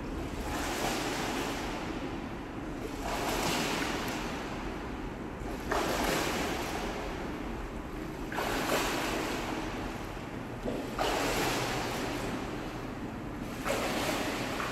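Water splashing from a swimmer doing breaststroke, coming in surges about every two and a half seconds, each starting sharply and fading off.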